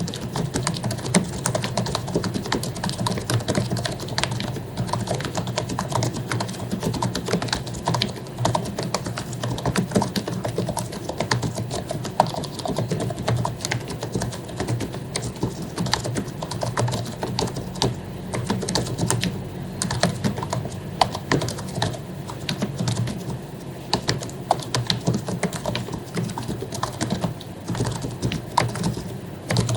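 Continuous fast typing on an HP membrane keyboard with lubricated keycaps: a dense, irregular run of soft key presses and clicks, over a low steady hum.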